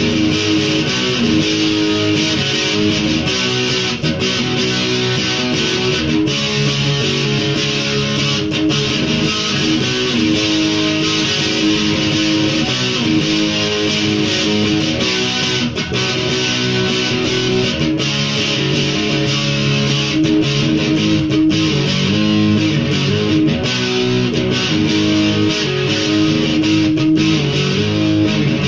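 Electric guitar being played, picked without a pause throughout.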